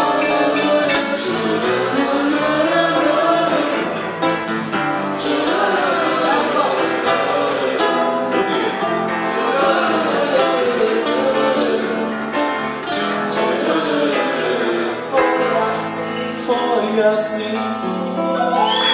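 Live song performance: singing into microphones over acoustic guitar accompaniment.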